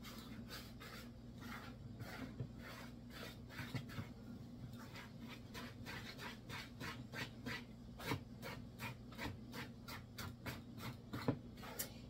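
Dough whisk stirring a thick, wet no-knead bread dough in a plastic mixing bowl: faint, quick, repeated scraping strokes, about three a second.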